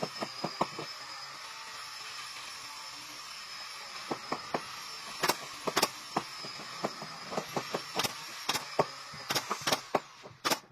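A series of sharp, irregular taps or clicks, a few close together near the start and more frequent in the second half, over a steady hiss.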